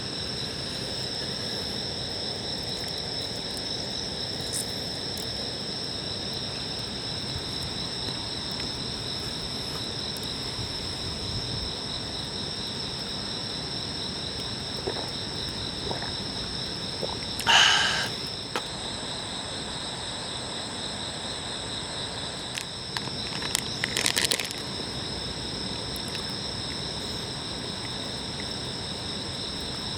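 Steady chorus of insects such as crickets trilling in several high, even tones. A brief loud clatter comes a little past halfway, and a shorter cluster of knocks about six seconds later.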